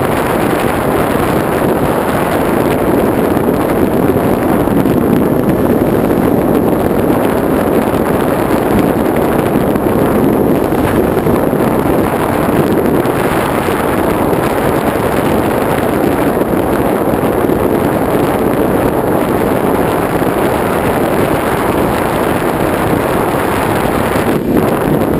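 Steady rushing noise of wind and the electric pusher motor and propeller of a TBS Caipirinha flying wing in flight, heard through its onboard camera's microphone.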